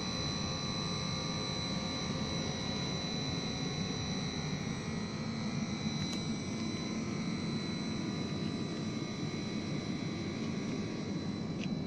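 Refrigeration condensing unit with an inverter-driven compressor running: a steady hum with a thin, high, constant whine over it.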